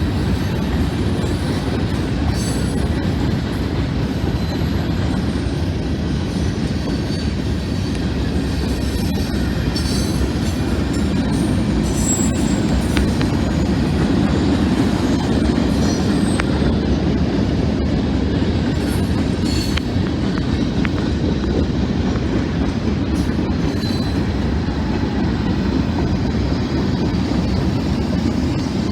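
A train rolling past, its steel wheels rumbling steadily on the rails with clickety-clack and faint high-pitched wheel squeal.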